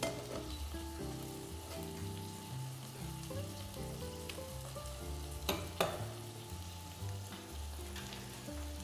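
Black tiger prawns searing in olive oil in a hot pan: a steady sizzle, with two sharp metal clinks of utensils against the pans about five and a half seconds in. Background music plays underneath.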